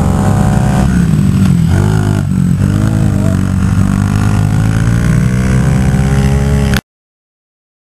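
Small minibike engine running close by, its pitch rising and falling as it is revved and eased off. The sound cuts off abruptly about seven seconds in.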